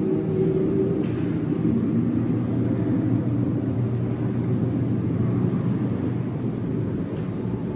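Steady low rumbling hum of room ambience in an indoor aquarium viewing gallery, with a few faint clicks.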